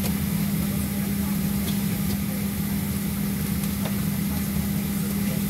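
Steady hum of a Boeing 737-700's cabin air system with a strong low drone, heard from inside the cabin while the plane sits at the gate with its engines not yet running.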